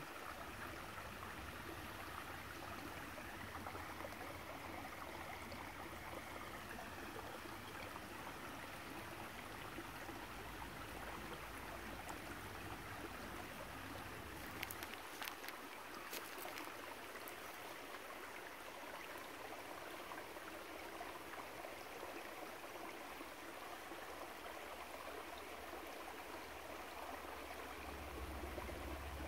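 Shallow creek water running steadily over rocks, with a few faint clicks about halfway through.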